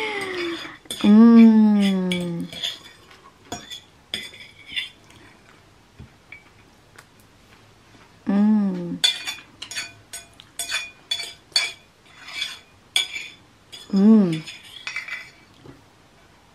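Metal fork clinking and scraping on a ceramic plate while food is eaten, many quick clicks, thickest in the middle. Three drawn-out hummed vocal sounds, each falling in pitch, come between the clinks.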